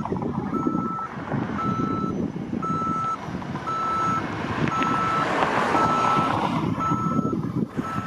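Reversing alarm of a construction vehicle beeping about once a second on a single steady tone, over a continuous low rumble.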